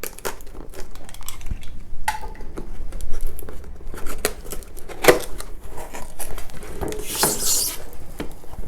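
Tape on a cardboard product box being cut and pulled free, with the cardboard rustling and knocking as it is opened. There is a longer ripping hiss about seven seconds in.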